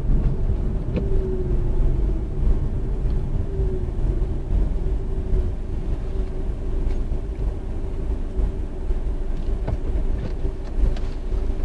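Vortex Tingo cabin noise with a gear engaged and the brake applied: a steady low rumble with a faint steady whine over it.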